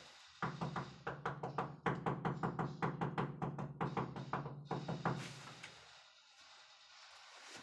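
A fast, even run of knocks, about five a second, over a low steady tone, lasting about five seconds and then stopping.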